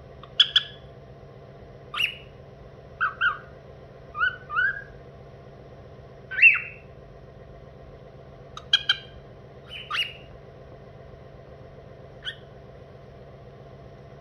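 Male cockatiel whistling his own made-up song: short, separate whistled notes and chirps, several in quick pairs, with pauses of a second or two between them.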